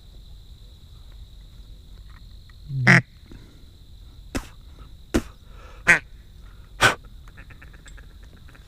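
One loud call about three seconds in, then four shotgun shots within about two and a half seconds as hunters fire at teal passing overhead.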